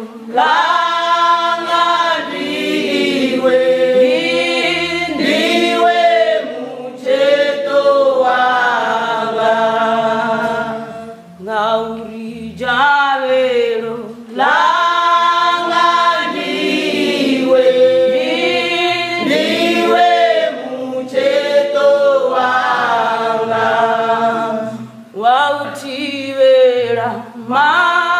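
Church choir singing a gospel song in Tshivenda a cappella, with long held sung phrases and short breaks between them.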